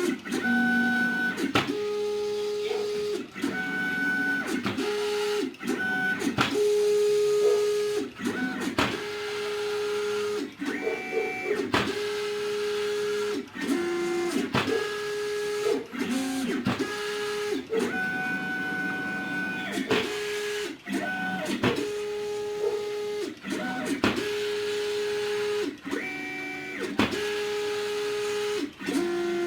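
CNC plotter's stepper motors whining as the machine draws: a steady tone that holds for a second or two, jumps to another pitch with each new move and stops briefly between strokes.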